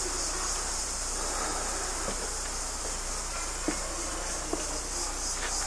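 Steady high-pitched buzz of an insect chorus, with a few faint taps about two, three and a half, and four and a half seconds in.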